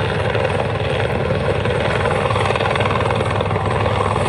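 Steady engine drone with a fast, even pulse, holding at one level throughout.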